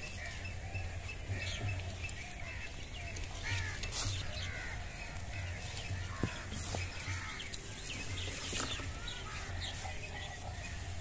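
Small birds chirping again and again, with a low pulsing hum underneath.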